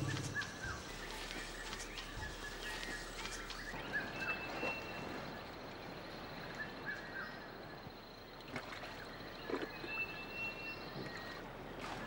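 Rainforest ambience: short, high whistled bird notes now and then, and a steady high-pitched whine that starts about four seconds in and stops near the end. Scattered soft snaps and rustles of vegetation run throughout.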